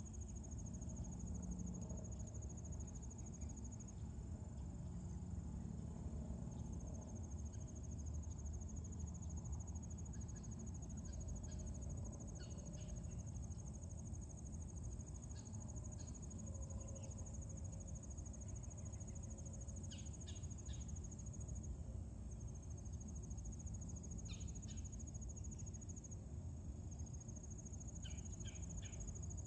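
Field insects trilling: one high, continuous trill that drops out briefly a few times, over a low rumble, with a few faint short chirps.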